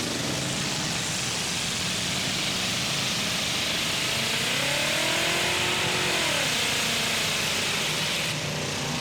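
Engines of demolition derby trucks and SUVs running loudly, with one engine revving up and back down about halfway through.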